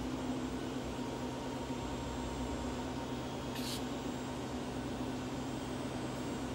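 Steady mechanical hum with a constant low tone over a background hiss, and a brief high hiss about three and a half seconds in.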